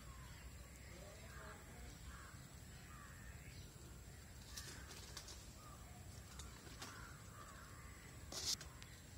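Faint outdoor ambience with crows cawing a few times, and one sharp click near the end.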